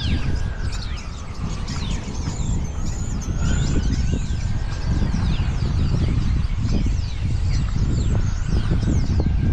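A large flock of small birds perched on power lines, calling all at once: many short, high, falling chirps overlapping throughout, over a steady low rumble.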